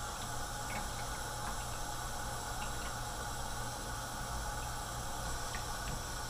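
Kitchen faucet running steadily onto a gutted trout being rinsed in the sink, with a few faint clicks.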